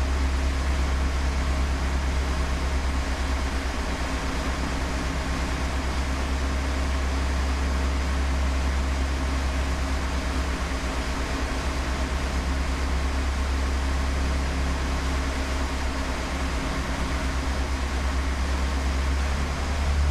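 The trawler's twin diesel engines running steadily under way, a strong low drone with the rush of the wake behind it. The engines are being run under load to test the starboard turbocharger after a clogged air intake and loose clamps were fixed.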